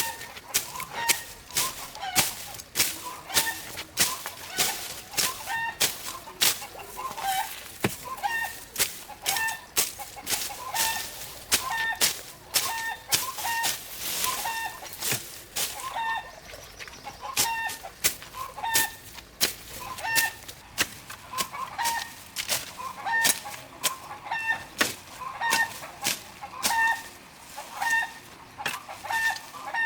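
Chickens clucking over and over, with a run of sharp knocks two or three times a second.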